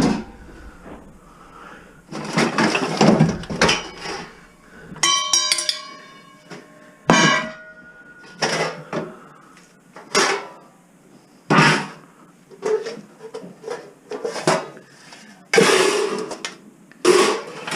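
Metal pots and pans clanking and clattering as they are handled, about a dozen separate knocks, with one ringing clang about five seconds in.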